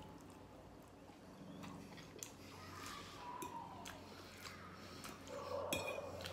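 Metal fork clinking and scraping against a plate as spaghetti is twirled: a few light clinks, the sharpest one near the end.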